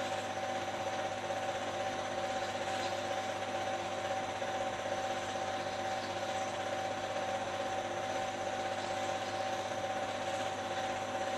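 Steady whirring hum with hiss and a constant pitched tone, unchanging throughout.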